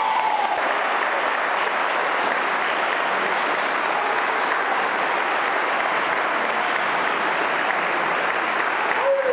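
A crowd applauding: the dense, even clatter of many hands clapping at once, holding steady.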